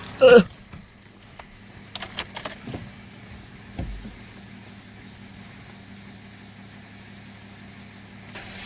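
Steady low hum of a car engine idling while it charges a dead battery through jumper cables. Over it, a short squeak about a quarter second in, then key jangles and clicks around two to three seconds in and a thump near four seconds, as the driver handles keys and the car before cranking.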